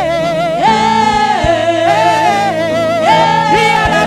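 Gospel worship music: sustained singing with vibrato over steady keyboard-like chords, with a few soft low thumps.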